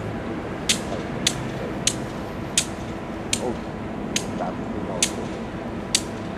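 EMD GP38 diesel-electric locomotive idling at a standstill, a low steady rumble. Over it come about eight sharp clicks, roughly one every three-quarters of a second and not quite even.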